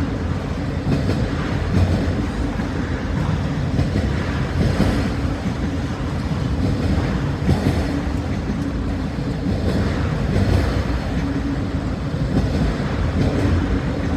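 Freight train of autorack cars rolling past, a steady low rumble with wheels clacking over rail joints every few seconds.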